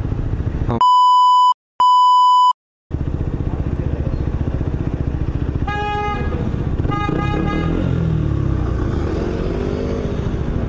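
Two censor bleeps, a steady beep tone with all other sound muted, about one and two seconds in. Around them a motorcycle engine idles, and a horn honks twice, briefly, about six and seven seconds in.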